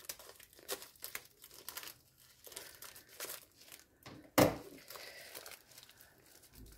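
Packaging being handled and unwrapped: soft crinkling and rustling in short crackles, with one louder rustle about four and a half seconds in.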